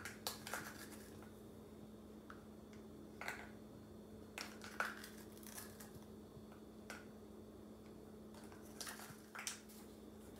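Light clicks and short scrapes of a measuring spoon against a small cup and glass bowl as salt is scooped, levelled and tipped into flour, at irregular moments over a steady low hum.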